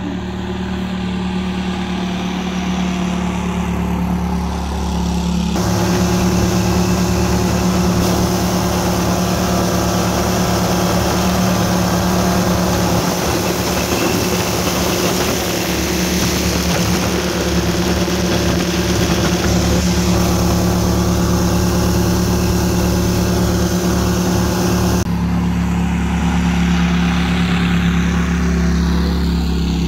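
Gator-Tail GTR 37 XD surface-drive mud motor, an air-cooled V-twin, running steadily at high throttle on a top-speed run, its pitch holding even. About five seconds in, the sound switches to close on board beside the engine, with loud wind and water rush over the motor. Near the end it switches back to the more distant pass-by.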